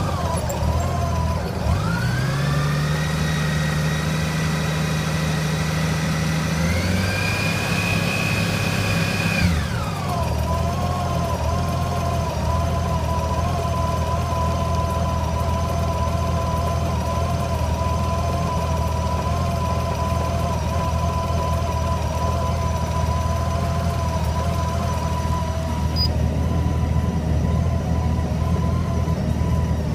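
Honda Gold Wing GL1800 flat-six engine idling, revved up about a second and a half in, held, raised higher a few seconds later, then dropped back to a steady idle that the owner calls rough.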